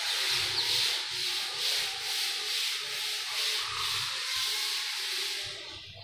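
Cloth duster wiping chalk off a chalkboard: scratchy rubbing in quick back-and-forth strokes, about two a second, dying away near the end.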